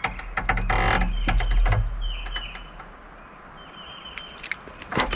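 Handling noise from a freshly caught bream being taken off the hook by hand: scattered clicks and a short rustling flurry about a second in.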